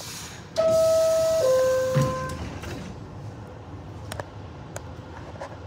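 R62A subway car's door-closing chime: two falling tones, the first held under a second and the second a little longer. Near the end of the second tone there is a thud as the doors shut, followed by a few light clicks over the car's low rumble.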